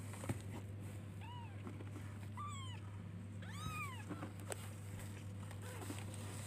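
Young kitten mewing: three short, high, rising-then-falling mews about a second apart, calling for its mother cat. A steady low hum runs underneath.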